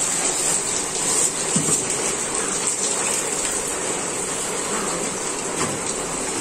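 Water pouring and splashing steadily over a goat carcass as it is rinsed, a continuous rushing hiss.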